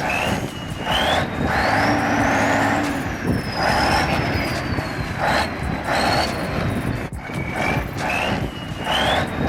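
Heavy truck engine running hard under load, with a thin high whine that rises and falls in pitch as the wheels spin in soft sand.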